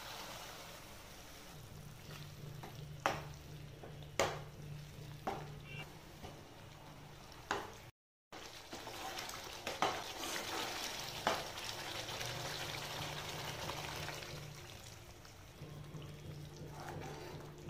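Onion-tomato masala sizzling in a nonstick pan as yogurt is stirred in with a slotted spoon, the spoon knocking sharply against the pan several times.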